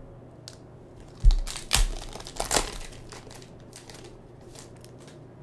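Panini Prizm basketball card pack's wrapper being torn open and crinkled by hand, in a string of crackly tearing strokes. The loudest comes a little over a second in with a low thump, and two more strong ones follow within the next second and a half.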